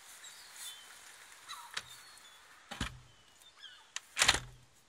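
Faint steady hiss of rain, with a few faint bird chirps and two brief louder thumps, about three and four seconds in, the second the louder.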